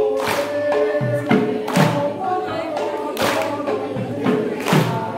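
A group of voices singing a devotional chant in long held notes, with loud percussion strikes every second or two.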